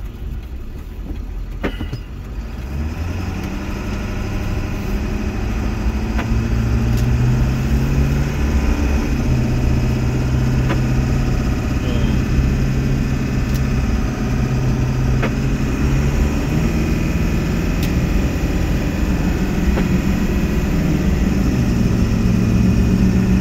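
Motor vehicle engine and road noise while driving. The sound grows louder over the first several seconds, then runs steadily, with the engine note shifting a few times.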